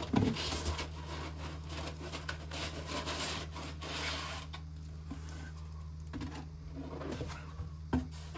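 Cardboard and packing material rustling and scraping as items are lifted out of a shipping box, mostly in the first half, with a knock at the start and another near the end. A steady low hum runs underneath.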